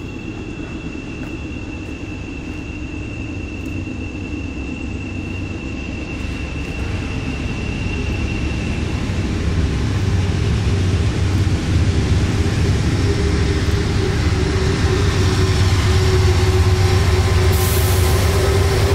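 Norfolk Southern freight train with several diesel-electric locomotives approaching and passing close by. The low engine rumble grows steadily louder as the locomotives draw near.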